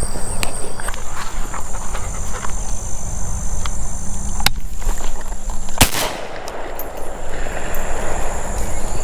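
A single shotgun shot about six seconds in. A steady high-pitched insect buzz runs underneath.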